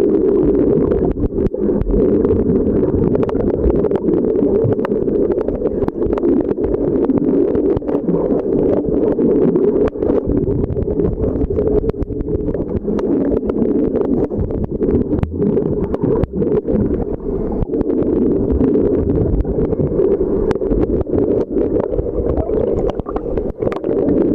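Muffled underwater rumble and rush of water on a submerged camera, with frequent small clicks and crackles throughout.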